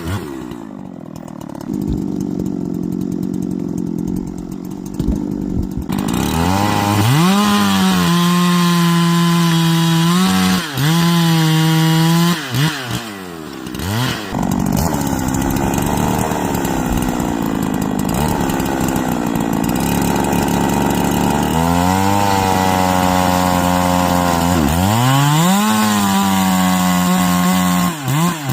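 Holzfforma G372XP two-stroke chainsaw bucking wood: it runs low for the first few seconds, then is throttled up to a high steady pitch, dropping back briefly between cuts and revving up again several times.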